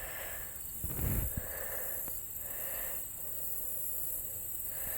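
Outdoor pond ambience: a steady high-pitched insect drone, with faint repeating calls about once a second and a soft low thump about a second in.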